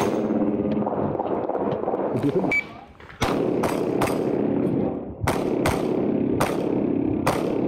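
Rapid pistol fire from a custom open-division race pistol chambered in .38 Super: about nine sharp shots, mostly in quick pairs, with a short break about three seconds in before the firing picks up again.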